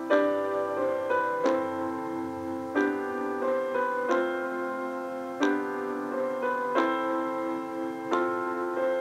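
Slow background piano music: a new chord is struck about every second and a third, and each one rings on until the next.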